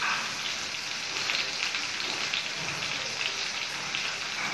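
Steady crackling sizzle of frying in a hot pan, a dense patter of small spits and pops.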